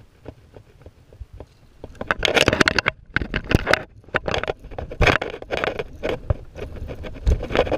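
Handling noise right at the camera: irregular, loud scraping and rustling bursts as the angler's hand and sleeve work the rod and spinning reel, starting about two seconds in after faint scattered ticks.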